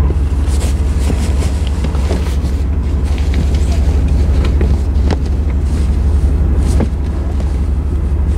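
Inside the cab of a 1996 Chevy G30 van on the move: a steady, deep road and engine rumble, with scattered clicks and rattles. The rumble eases a little about seven seconds in.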